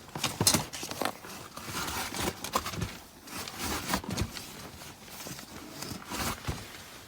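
Handling noises: irregular clicks, knocks and rustling as tools and materials are picked up and moved about.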